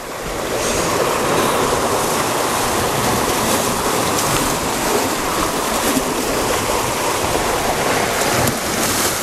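Sea surf breaking against the rocks and water washing back down over them: a steady rushing noise.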